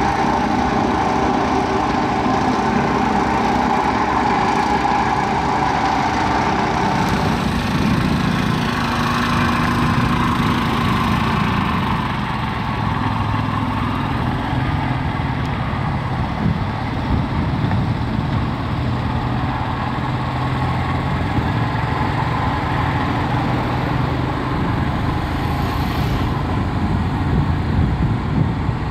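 Heavy diesel machinery running steadily as a Doosan 300 excavator loads a Scania truck. The note changes between about 7 and 12 seconds in, then settles lower.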